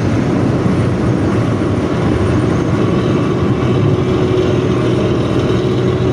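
Diesel bus engine running under way with its loud growling 'ngorok' exhaust, a steady deep rumble without let-up.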